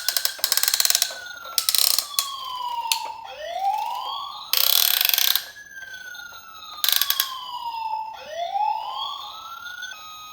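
A toy fire truck's electronic siren wails: a quick rise, then a long slow fall, repeating every few seconds. Over it come four bursts of rapid ratcheting clicks from the toy's friction-motor gears as its wheels are pushed.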